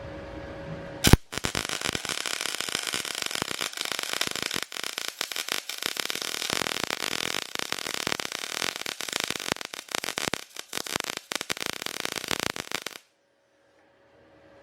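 Welding arc crackling in a dense, irregular run, starting with a sharp crack about a second in and stopping abruptly near the end as the weld bead is finished.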